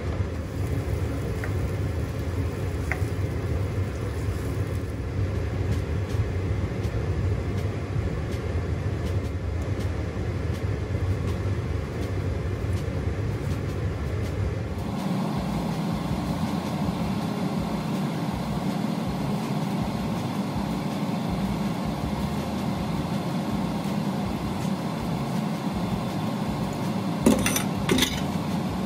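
Steady hum from the hob under the wok while the sauce cooks; its tone shifts about halfway through, and a few sharp clicks come near the end.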